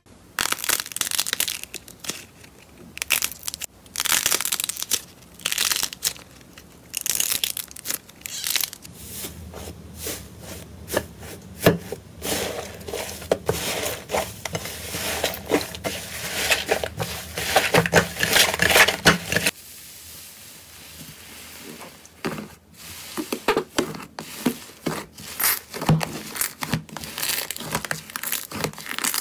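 Hands squeezing, stretching and kneading slime, with dense, irregular crackles and clicks that swell and fade as the slime is worked. The sound changes abruptly about twenty seconds in, as one slime clip cuts to another.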